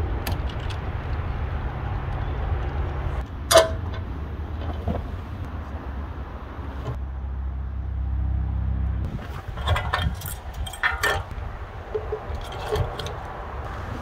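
Metal clinks and clanks of hand tools against steel parts during repair work on a hydraulic track unit: one sharp ringing clank about three and a half seconds in, and a cluster of quick clinks in the second half. A low steady drone underneath stops about nine seconds in.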